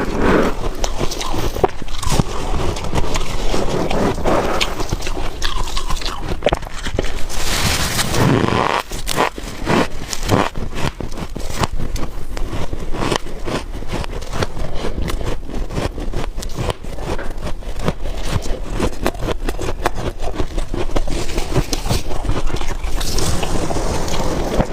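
Freezer frost being scraped and crunched between the teeth: a steady run of dense, crackling crunches with scraping hiss.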